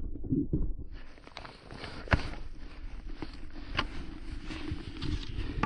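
Irregular crunching and scraping in snow, from someone shifting and moving in snow and ice, starting about a second in, over a low rumble of wind on the microphone.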